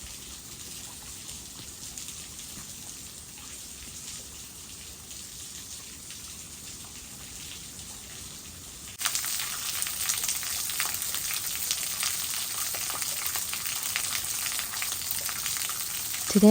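Running water of a creek waterfall, a steady rushing hiss that jumps suddenly louder about nine seconds in.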